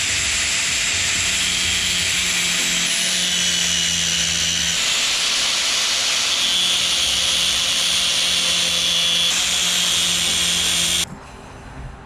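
Angle grinder with a thin disc grinding away the metal lip of an old spark plug, running steadily with a whine, then stopping abruptly about eleven seconds in.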